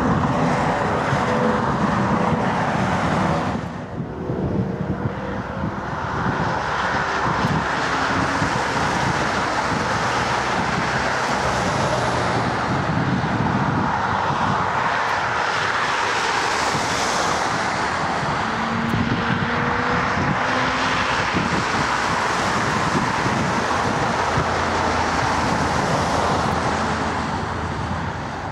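Jet airliner engines, first a Boeing 757 climbing overhead, then after a brief drop about four seconds in, a Boeing 737's engines steady through approach, touchdown and rollout.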